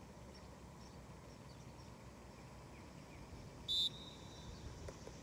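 Open-air ambience over a grass field: a faint steady background with a few faint bird chirps. About three and a half seconds in, a single short, loud high-pitched tone sounds, then fades off over the next half second.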